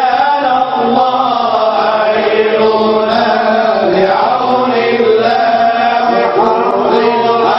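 Men's voices chanting an Islamic devotional hymn together, with long, drawn-out melodic lines that run on without a break.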